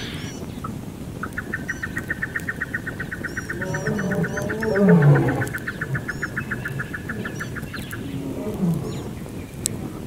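Night bush sounds: a long, steady, high pulsed trill of about eight pulses a second, starting about a second in and stopping near eight seconds. A deep animal call falling in pitch, the loudest sound, comes over it about four to five seconds in, with faint high chirps scattered through.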